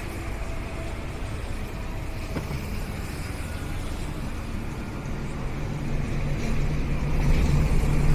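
Passing road traffic, with a motor vehicle's engine hum growing louder from about five seconds in.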